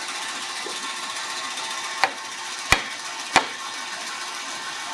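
Three sharp wooden knocks, about two, two and a half, and three and a half seconds in, as pieces of a wooden rung blank are handled on the saw table, over a steady background hiss and faint hum.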